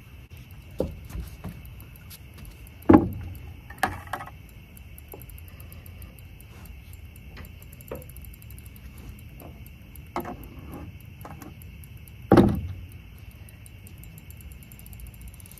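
Steady chorus of crickets, with a few knocks and thumps on the dock, the two loudest about three seconds in and near twelve seconds.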